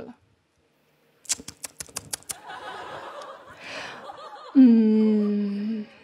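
Studio audience laughing, starting with a quick run of sharp clicks. Near the end a woman hums a long, flat 'emmm', the loudest sound.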